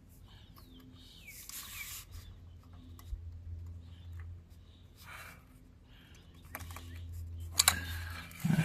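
Rubbing and handling noises from working on a car's throttle cable, with scattered light clicks and a sharper pair of clicks near the end, over a steady low hum.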